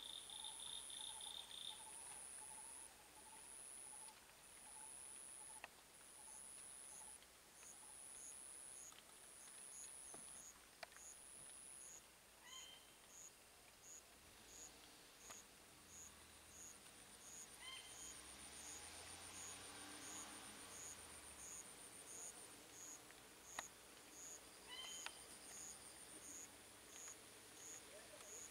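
Faint insects trilling: a high, pulsing trill over an even ticking, with a few short bird chirps. A faint low hum rises and fades in the middle.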